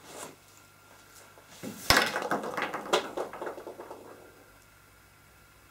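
Objects handled on a table: a sharp knock about two seconds in, then a run of rattling and clinking that dies away about four seconds in.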